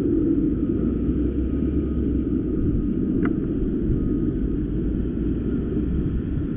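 Steady low rumble of wind buffeting a helmet-mounted camera's microphone, with one short click about three seconds in.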